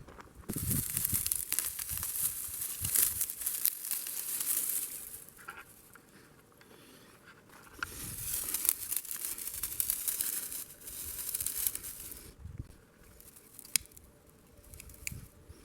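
Crinkling and tearing in two long spells of a few seconds each, with a single sharp click about two seconds before the end.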